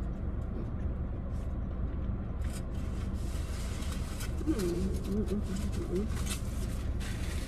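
Steady low hum inside a parked car's cabin, with light crackling and clicking like handled food wrapping. About four and a half seconds in comes a short wavering pitched sound in four quick pieces, lasting under two seconds.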